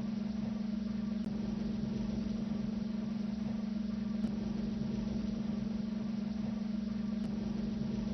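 Interior cockpit ambience of the Airwolf helicopter, as a sound effect: a steady low hum over a constant rushing noise. A faint high tick comes about every three seconds.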